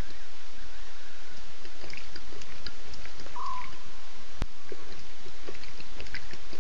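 Night bush ambience at a waterhole: a steady hiss with scattered faint chirps and ticks. A short falling animal call sounds once, about three and a half seconds in, and a sharp click comes a second later.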